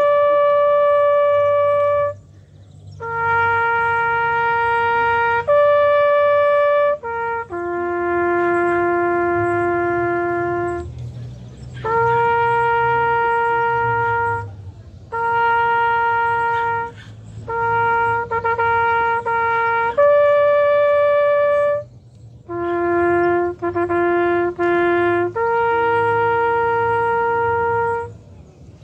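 Solo trumpet playing a slow bugle-style call: long held notes on a few open notes, rising and falling between them with short breaths in between, ending just before the close.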